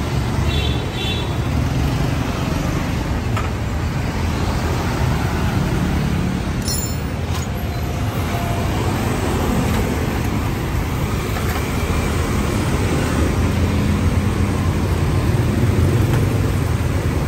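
Busy city street traffic, motorbikes and cars passing in a steady rumble, with a short horn toot about half a second in and a brief sharp noise about seven seconds in.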